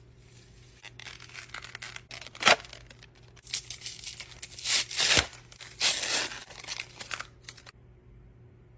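A printed paper or plastic packet being torn open by hand and crinkled, in a string of rasping rips, the sharpest about two and a half seconds in and again around five seconds.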